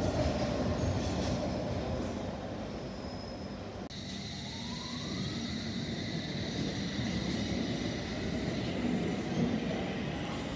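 London Underground S Stock trains in the station: rumble from the track fades over the first few seconds. After an abrupt change about four seconds in, a train accelerates with the rising whine of its traction motors over a steady high whine.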